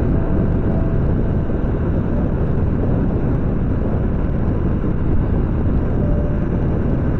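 Riding a motorcycle at speed: wind rushing over the microphone mixed with engine and road noise, a steady dense rush with no change.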